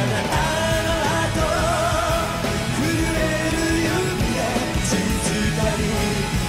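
Live concert recording of a J-rock song: a male lead singer holding long wavering notes over a full rock band.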